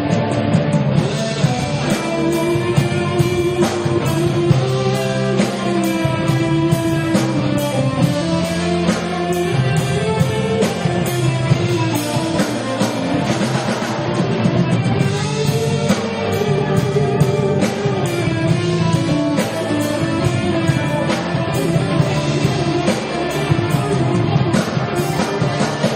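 Live rock band playing at full volume: amplified electric guitar over a drum kit, with a melody line that moves up and down throughout.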